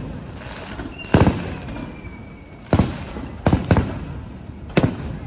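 Aerial fireworks shells bursting: five sharp booms, two close together in the middle, each leaving a rumbling echo. A faint falling whistle follows the first boom.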